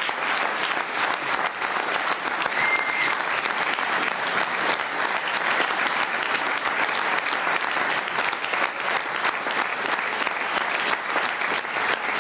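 Studio audience applauding steadily, a dense patter of many hands clapping. A brief high tone sounds about three seconds in.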